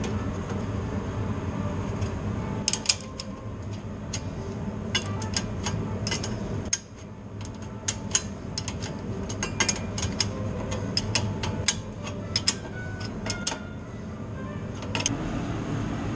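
Irregular sharp clicks and light metallic taps of hand tools working on the exhaust fittings, over a steady low hum.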